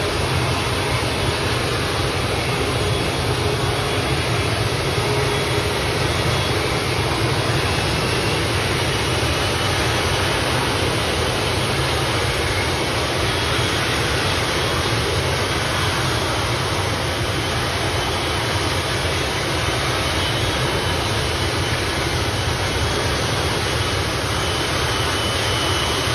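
Turboprop engines of an ATR regional airliner running on the ground at low power, a steady, unbroken propeller and turbine noise.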